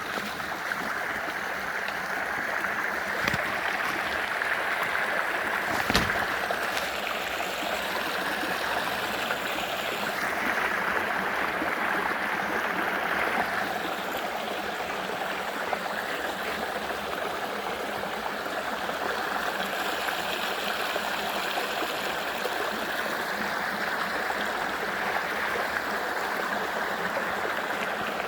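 Steady rush of running water, with a single sharp knock about six seconds in.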